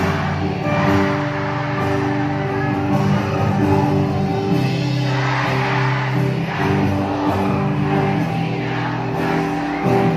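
Live band music with singing, over crowd noise from a large audience.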